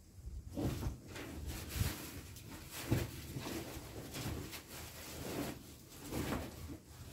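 Scattered rustles and light knocks as a woven plastic sack is handled and opened by hand.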